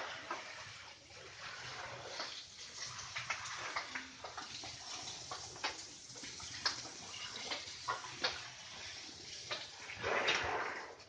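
Water from a hose spraying and splashing on a wet concrete floor, with scattered knocks and scrapes. A louder splashing burst comes about ten seconds in.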